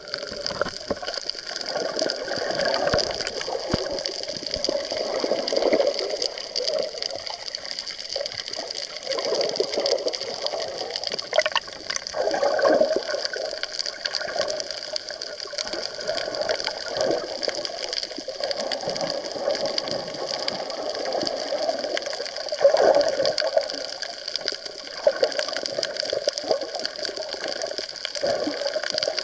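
Water rushing and gurgling around a camera held underwater in a rough wave surge, swelling and easing every few seconds over a steady high hiss.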